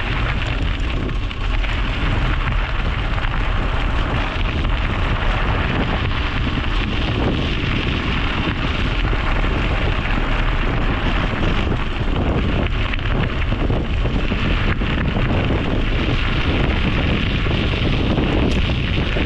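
Steady wind noise buffeting a GoPro Hero 9 action camera's microphone while cycling, loud and even with a heavy low rumble.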